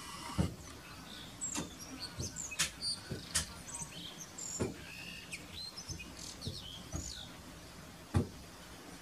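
Blue rock thrush giving short, high chirps and whistled notes, scattered from about a second and a half in to about seven seconds in. A few brief knocks sound in between, the loudest near the end.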